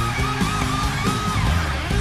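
Live heavy metal band playing: a distorted electric guitar lead holds a note with wide vibrato, then slides down in pitch about three-quarters of the way through, over bass and drums.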